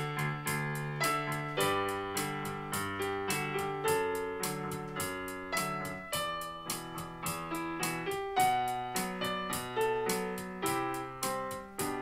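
Piano accompaniment playing alone, chords and a melody of struck notes left to ring, with the ocarina silent.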